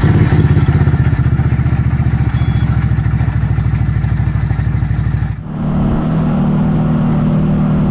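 CFMoto CForce 1000's V-twin engine running, heard close at the CVT clutch cover with a rapid even pulse; faint metallic noises from the clutch area come from a failing clutch bearing. About five seconds in it switches to the ATV riding along, engine running steadily.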